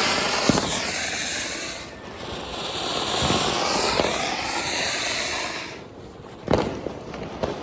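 Fireworks going off: several whistles sliding down in pitch over a dense hiss, with short pops and a sharp bang near the end.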